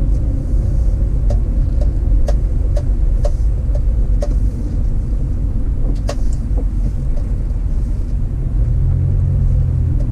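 Car driving, with a steady heavy low rumble of engine and road noise and scattered sharp clicks and knocks over the ride.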